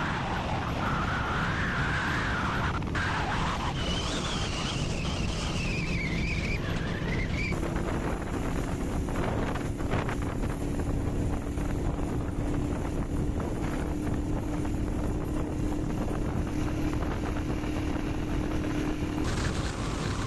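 Small motorcycle riding along at a steady pace, its engine running under a constant rush of wind on the microphone. A whine wavers up and down in pitch for the first several seconds, then gives way to a steady hum.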